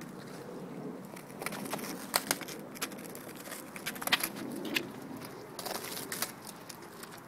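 Chocolate Labradors crunching and gnawing a stale baguette, the hard crust cracking in sharp, irregular crunches, loudest a little after two seconds and again around four seconds in.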